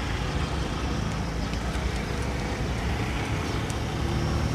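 Steady low rumble of background noise, like road traffic and wind on the microphone, with a few faint clicks.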